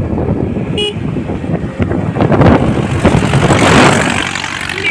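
Rough, uneven rumble of vehicle engines and road noise while moving along a road beside loaded tractors, with a very short horn toot about a second in.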